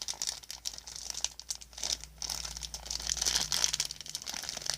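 Plastic packaging of toy doll diapers crinkling and rustling irregularly as it is handled and pulled at.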